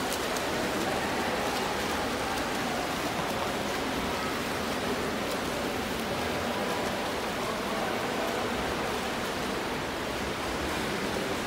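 Steady, echoing wash of water noise in an indoor swimming pool hall: swimmers' front-crawl strokes splashing and churning the water, blended into an even reverberant hiss.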